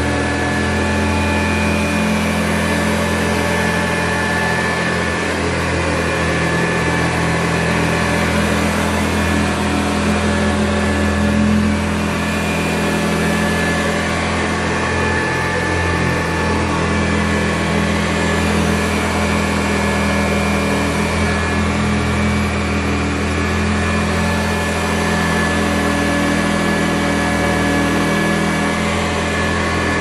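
1960 Hoover Convertible Model 31 upright vacuum cleaner running steadily while vacuuming: an even motor hum with a rush of air and a faint high whine over it.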